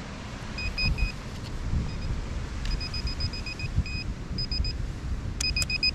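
Handheld metal-detecting pinpointer beeping in short runs of high, same-pitched beeps as it is pushed into the sand over a buried target, faster runs about halfway through and near the end. Wind rumbles on the microphone underneath.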